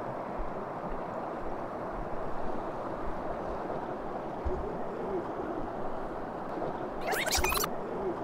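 Mountain stream rushing over rocks, a steady wash of water. About seven seconds in, a brief high-pitched sound rises over it for under a second.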